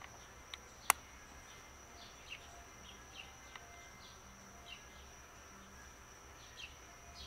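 Faint outdoor ambience of small birds giving short falling chirps every second or so over a steady high-pitched buzz. One sharp click comes about a second in.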